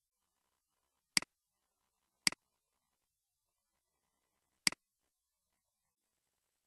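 Computer mouse button clicked three times, each a short sharp click with its press and release close together.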